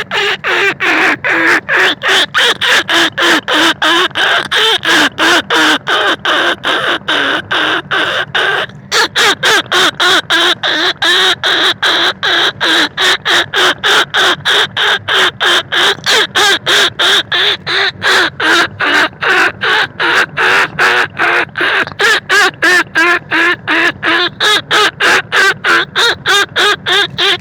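Rat lure call for field rats and bandicoot rats: a rapid, unbroken run of short pitched calls, about three a second, with one brief pause about nine seconds in.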